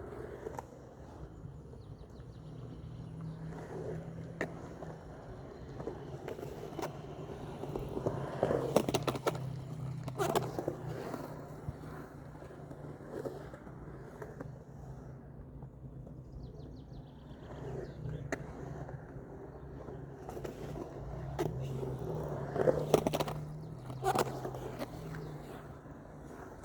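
Skateboard wheels rolling over pavement with a steady low rumble, broken by sharp clacks of the board, bunched about a third of the way in and again near the end.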